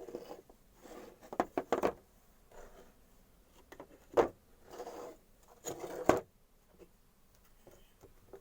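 Wooden workpiece being handled: short scrapes and a few sharp knocks, the loudest about four seconds in and again near six seconds.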